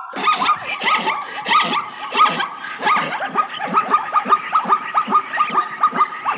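Animal calls repeated rapidly, about four or five a second, each short call dropping in pitch.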